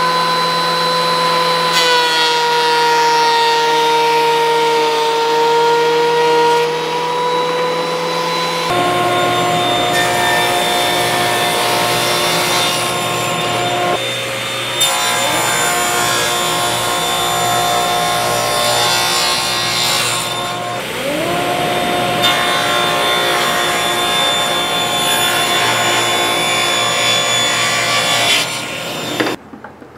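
Stationary woodworking power tools milling a thick cherry board: a motor running at speed with a steady whine and the noise of the blade or cutter working the wood, the pitch dipping slightly as the cut loads it. The sound comes in several clips that change abruptly; in one the motor spins up with a rising whine about two-thirds of the way through, and it cuts off suddenly near the end.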